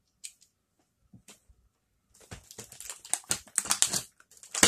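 Hands handling small plastic toy vehicles and rummaging in a vacuum-formed plastic packaging tray: a few light clicks, then from about two seconds in a dense run of plastic clicks, taps and crinkling, loudest near the end.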